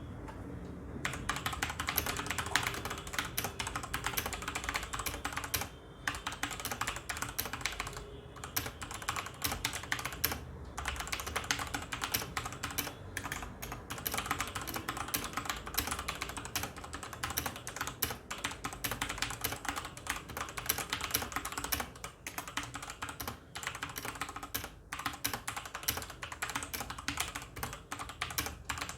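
Fast, continuous typing on a CosmicByte CB GK 18 mechanical keyboard with Outemu Red linear switches: a dense run of key clicks and clacks that starts about a second in and carries on with only brief pauses.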